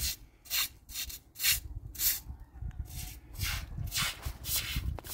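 A hand broom sweeping the hut's doorstep in brisk strokes, about two scratchy swishes a second, over a low rumble.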